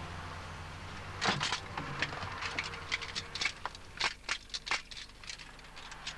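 Firefighting equipment being handled in a fire engine's cab: a run of irregular clicks, taps and clatters, starting about a second in and thinning out near the end, over a low steady hum.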